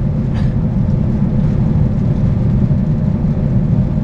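Steady low rumble of a Boeing 929 jetfoil cruising, its gas turbines driving the water jets, with a faint steady hum above the rumble.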